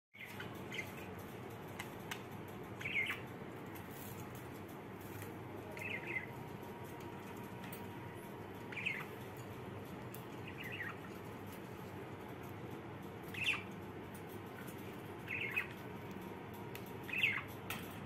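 Budgerigars giving short, high chirps every two to three seconds over a steady low background hiss.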